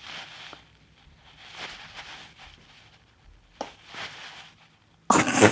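A person breathing hard after dancing: three soft, airy breaths about two seconds apart, then a loud, short breathy burst near the end.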